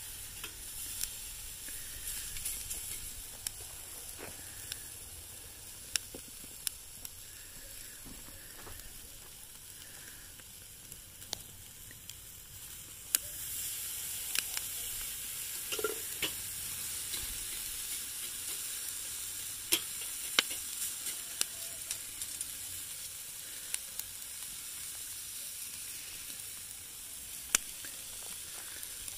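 Food sizzling on a grill: a steady hiss broken by scattered sharp pops, growing louder about halfway through.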